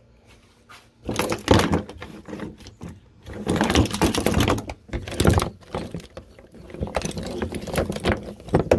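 Handling noise: irregular rustling, clicks and knocks as the mesh seat, straps and cords on a plastic kayak are moved about, with the phone rubbing against the seat. It starts about a second in after a brief quiet.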